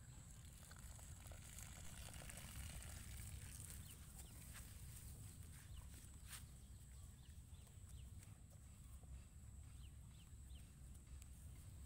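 Near silence: faint outdoor pasture ambience with a steady high hiss and low rumble, and scattered short falling bird chirps, most of them in the second half.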